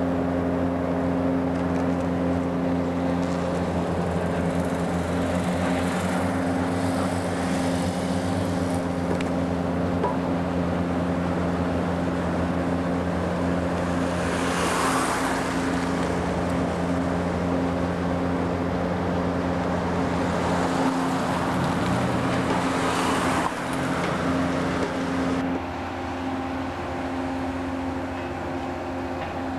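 Tunnel construction-site machinery running with a steady, even hum. It swells louder with a rushing noise twice along the way, and the hum changes a few seconds before the end.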